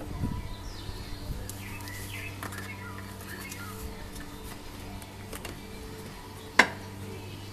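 Birds chirping faintly over a steady low hum, with a few dull knocks in the first second and a half and one sharp click about six and a half seconds in.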